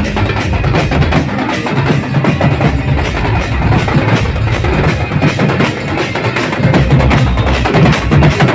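An Adivasi drum band playing loudly, several drums beaten together in a dense, driving rhythm.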